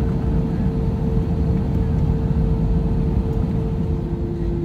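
Airbus A320-200 cabin noise: a steady rumble of engines and airflow with a steady hum that drops slightly in pitch near the end.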